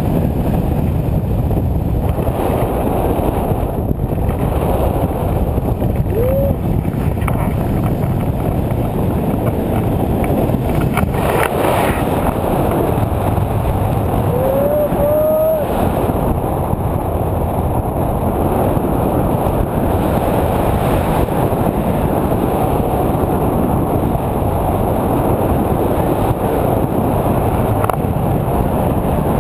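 Wind buffeting the microphone of an action camera held out on a pole during a tandem paraglider flight: a steady, loud rush of wind noise. Twice a short rising tone sounds through it, about six seconds in and again around fifteen seconds.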